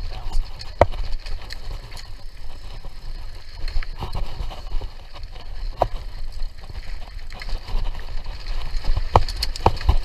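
Mountain bike being ridden along a dirt trail: a steady low rumble from the tyres, with irregular sharp clicks and knocks as the bike rattles over bumps.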